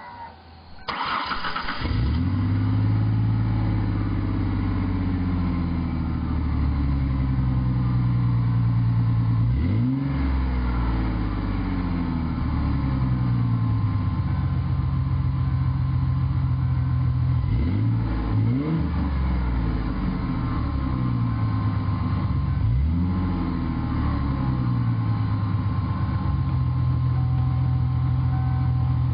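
V6 Ford Mustang exhaust through Flowmaster 40 Series mufflers, deep and loud. The starter cranks briefly about a second in, and the engine catches with a flare of revs that slowly settles to idle. It is then revved and let fall back to idle several times, once with two quick blips.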